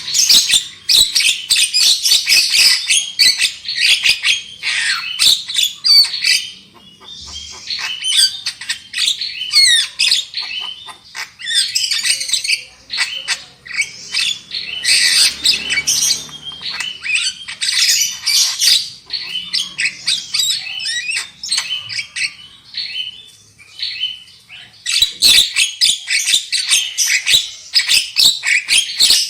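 Javan myna singing: a loud, dense chatter of harsh squawks, clicks and short whistled notes, easing off for a few seconds twice before picking up again.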